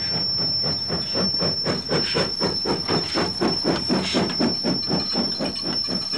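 A 0-4-0 industrial steam locomotive working close by: quick, even exhaust chuffs, about five a second, over hissing steam.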